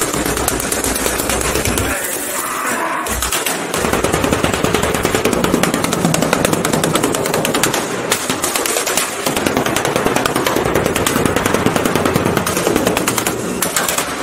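A sledgehammer rapidly and repeatedly smashing a Ford Festiva hatchback. Blow after blow comes in quick succession, with windscreen glass cracking and sheet-metal body panels crunching.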